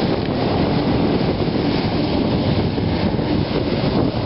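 Jet ski engine running at speed with water spray rushing, a loud steady noise with a low hum underneath.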